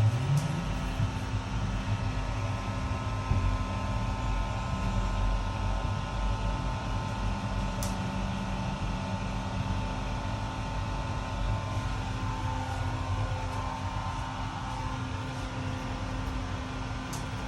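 Steady low rumble with a constant mechanical hum, and an engine-like note rising in pitch in the first half second.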